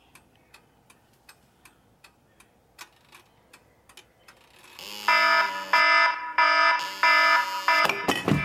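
Faint clock-like ticking, about three ticks a second. About five seconds in, an iPhone alarm tone starts beeping loudly in a repeating pattern. Near the end there is a low thump as a hand reaches for the phone.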